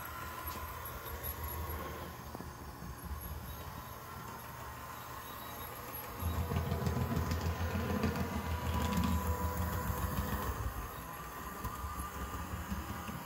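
HO scale Bachmann Spectrum Doodlebug model railcar running on the track: a steady low hum that grows louder about six seconds in and eases back about five seconds later.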